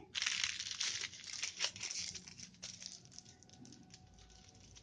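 Aluminium foil crinkling as its ends are twisted and pressed shut around a rolled-up dough log. It crackles densely at first, then grows quieter and sparser after about three seconds.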